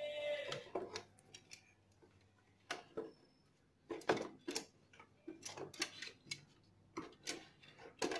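Irregular clicks and taps of plastic parts and wire connectors being handled and fitted around a motorcycle's headlamp and ignition-switch wiring.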